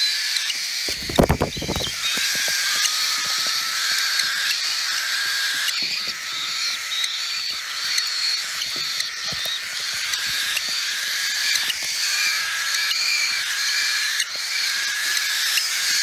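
Hungry cockatiel chicks' food-begging calls: short, raspy cries repeated about once a second without a break, at two pitches as if from more than one chick. A low thump about a second in.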